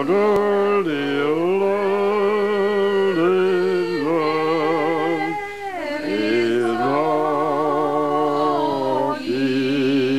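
Voices singing a slow song in long held notes with vibrato, the phrases breaking briefly every two to three seconds.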